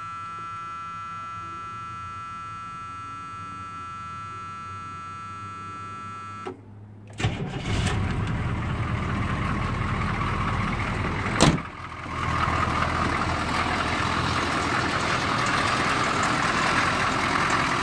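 A steady dashboard warning buzzer sounds for about six and a half seconds while the glow plugs preheat. Then the 1983 Chevy K5 Blazer's 6.2 L Detroit diesel V8 cranks briefly, catches and settles into a loud diesel idle. A single sharp knock comes about eleven and a half seconds in.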